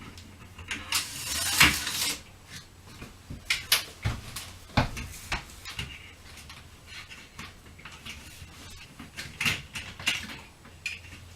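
Scattered clicks, knocks and light clattering of window blinds and their mounting hardware being taken down, with a short rustling scrape about a second in.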